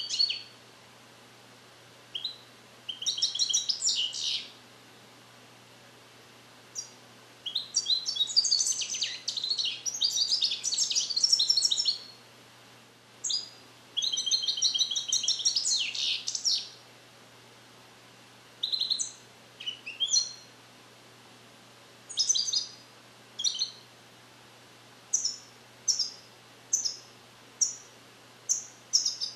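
Captive-bred, song-trained European goldfinch singing Neapolitan-style tutored passages (passata napoletana) in twittering phrases several seconds long; the young bird is still perfecting the song, which is not yet complete. Near the end it gives short separate notes, under a second apart.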